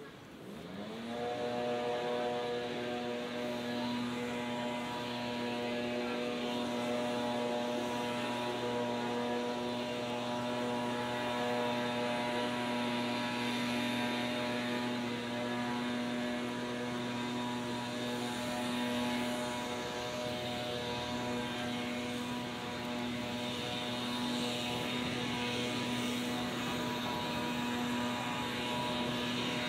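A machine starts up with a short rising whine about a second in, then runs at a steady pitch: a constant hum with a layer of noise over it.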